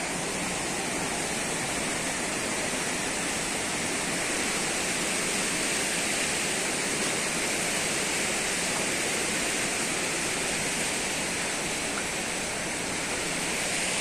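A stream rushing over rocks and small cascades: a steady, even rush of water.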